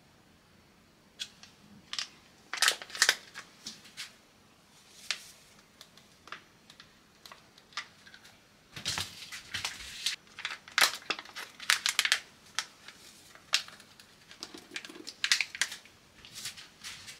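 Plastic zip pouch of strawberry powder crinkling in the hand as it is handled and tipped over a saucepan, in irregular bursts of sharp crackles, with the powder pouring into the pan.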